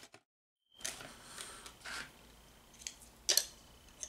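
Hands handling plastic replica parts and a cardboard box: soft rustles and small clicks, with one sharper click about three seconds in. A moment of dead silence comes just after the start.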